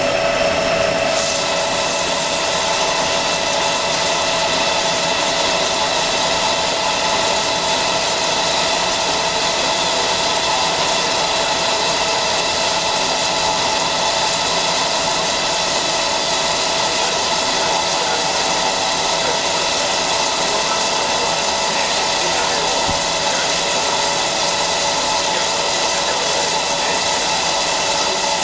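CNC flat-bed lathe running while machining a part: a steady machine hum with several steady whining tones over a hiss, the hiss growing brighter about a second in and then holding level.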